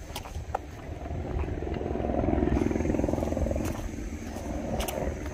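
An engine passing by, swelling to its loudest two to three seconds in and then fading, over a steady low rumble.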